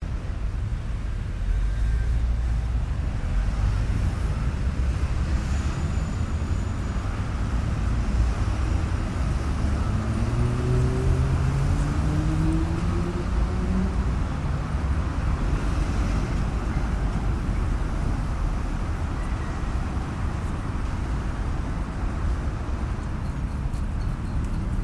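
City street traffic din: a steady rumble of cars and engines. About ten seconds in, one engine note rises in pitch for a few seconds.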